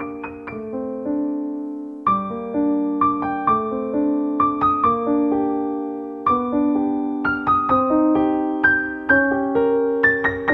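Background piano music: a melody of separate struck notes over held lower notes, at an even pace.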